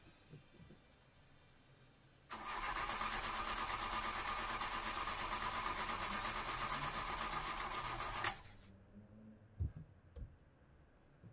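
Car engine being cranked by its starter motor for about six seconds without catching, then cutting off sharply, followed by two faint clicks. The car fails to start, which the driver puts down to a dead battery.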